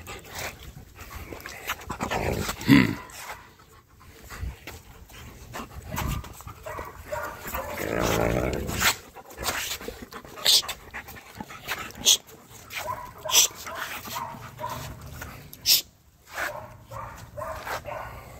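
Wolfdogs in rough play: panting and vocal sounds, with a loud pitched burst about two and a half seconds in, a longer noisy stretch around eight seconds in, and several sharp clicks later on.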